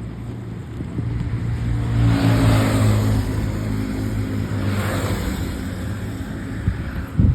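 A motor vehicle engine running with a steady low hum, louder through the middle, while two rushes of passing traffic go by. There is a sharp knock near the end.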